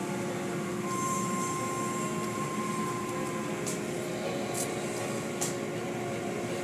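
Automatic car wash heard from inside the car: water spraying and hanging cloth strips sweeping over the windshield, over a steady hum of the wash machinery, with a few short hissing bursts of spray in the second half.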